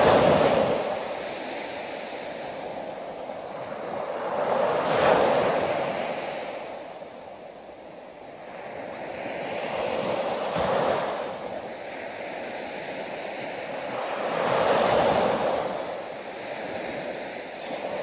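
Ocean surf breaking and washing up a sandy beach, the rush swelling and fading about every five seconds.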